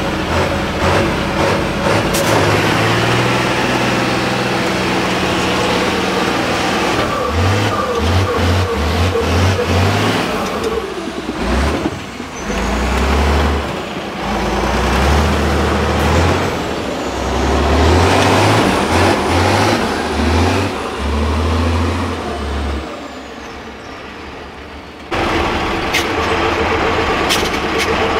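Tatra 8x8 trial truck's turbo-diesel engine revving hard under load as it crawls through mud and sand, the revs rising and falling over and over. The engine eases off near the end, then the sound jumps back louder.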